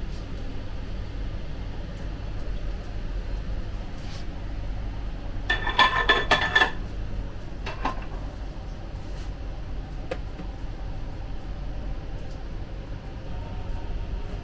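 Metal clanking and clinking with a brief ringing tone for about a second, a little before the middle, over a steady low kitchen hum. A few lighter knocks follow.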